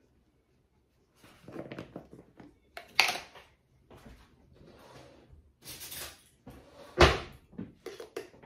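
Kitchen handling clatter as a mayonnaise jar is opened and a spoon is fetched, with sharp knocks about three and seven seconds in.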